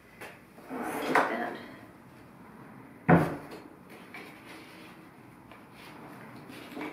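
Artificial flower stems and faux foliage rustling as they are worked into a galvanized metal jug, with one sharp knock about three seconds in, then soft handling noise.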